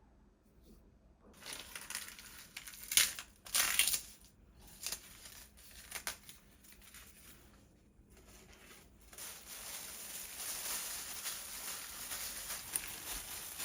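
Handling noises: irregular rustling with a few sharp clicks, then a steady hiss from about nine seconds in.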